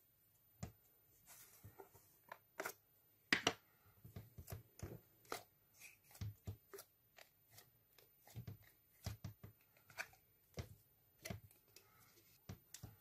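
A plastic tub of white fluffy slime opened and emptied by hand over a glass dish: a scattered series of faint, irregular clicks and crackles from the tub and the slime, with one sharper click a few seconds in.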